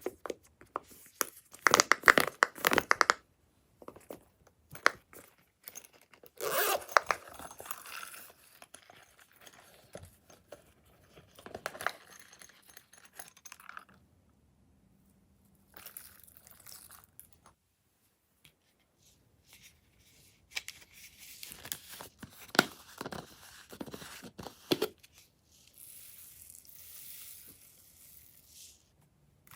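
Glossy slime being worked by hand, giving sticky crackling and popping in bursts separated by short pauses.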